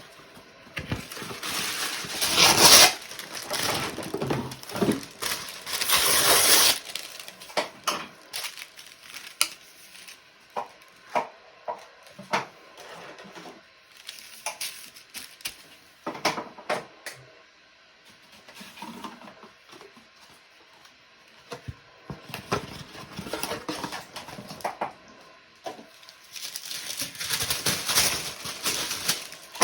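Clean-up handling noises: bursts of rustling and wiping, with scattered small knocks and clinks as things are moved about.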